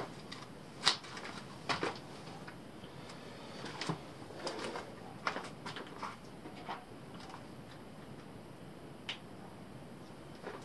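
Scattered light clicks and knocks of someone rummaging for screws, hard small objects being picked up and set down, with one sharper knock about a second in.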